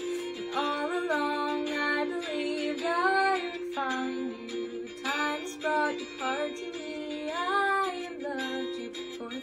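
A young woman singing solo, with long held notes that bend in pitch, over a steady instrumental accompaniment.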